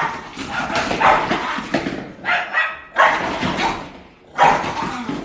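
A dog barking and vocalizing in about four drawn-out bouts, its angry noise.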